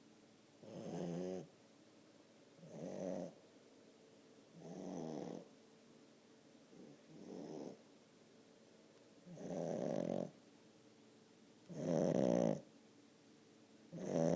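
French bulldog snoring in her sleep: seven snores, about two seconds apart, the loudest near the end.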